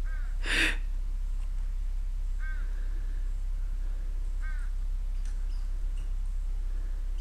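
A squirrel giving short, repeated chirping alarm barks about every two seconds, scolding a cat. A brief scuffing noise burst comes about half a second in.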